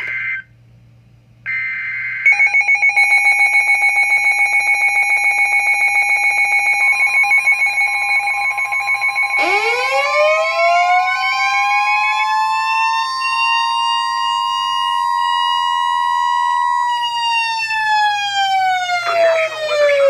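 NOAA weather radio receivers sounding a warning alert together. A rapidly pulsing electronic alarm beep runs alongside the steady 1050 Hz warning alarm tone. An electronic siren winds up about nine seconds in, holds, and winds down near the end.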